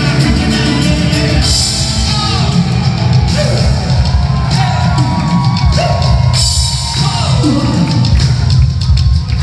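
Synth-pop band playing live through a concert PA, recorded from the crowd: loud drums, bass and keyboards, with several falling synth swoops.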